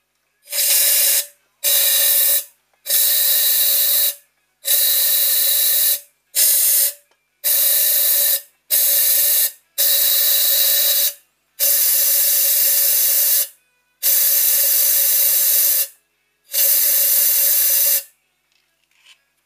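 Eleven short bursts of pressurized hissing from a spray nozzle, each half a second to two seconds long, starting and stopping sharply, with a steady whistle running through each burst.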